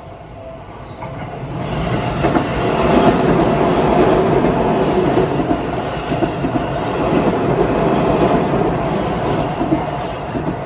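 Seibu 20000 series electric commuter train passing over the level crossing, its wheels clattering over the rail joints. The sound builds from about two seconds in, stays loud, and eases slightly near the end.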